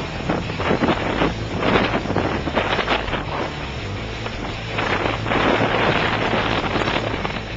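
Wind buffeting the microphone aboard a sailing yacht under way, in repeated gusts.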